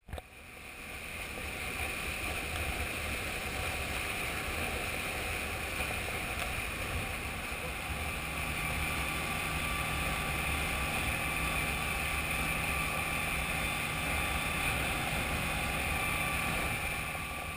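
Small dive boat under way: its motor drones steadily over wind and rushing water. The sound fades in over the first two seconds.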